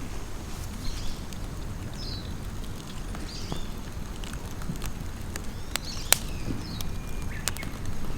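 Birds chirping now and then over a low steady rumble, with a few sharp clicks in the second half.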